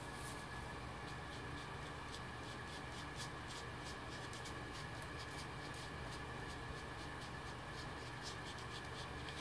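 Soft, quick scuffing strokes of a foam ink blending tool rubbing black ink onto cardstock, in an irregular run of short strokes over a steady faint hum.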